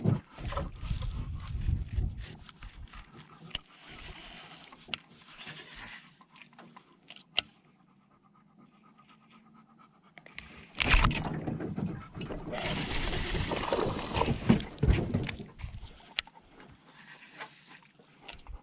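Labrador retriever panting, with scattered knocks in a small boat and louder stretches of rushing noise about eleven seconds in and again from about thirteen to fifteen seconds.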